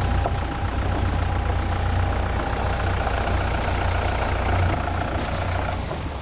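Safari jeep's engine running with a steady low rumble, easing off a little near the end.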